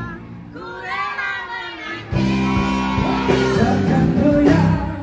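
Live band music with a woman singing a slow Malay song. It is softer for about the first two seconds, then the band comes in fuller and louder.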